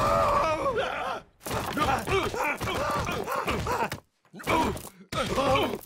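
Two cartoon men groaning and crying out in pain in repeated bursts, with thuds of their bodies hitting rock as they tumble down a cliff.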